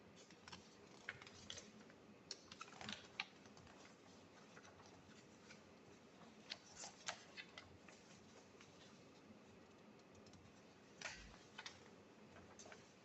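Near silence with faint, scattered small clicks and rustles, in short clusters about a second in, about seven seconds in, and around eleven seconds, the sound of documents or a keyboard and mouse being handled.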